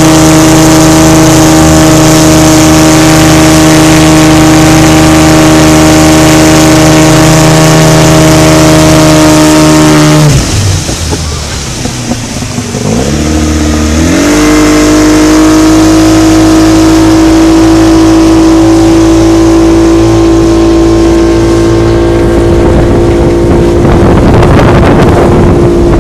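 Motorboat engine running loud at steady high revs. About ten seconds in it is throttled back and its pitch falls, then a few seconds later it revs back up and holds steady again.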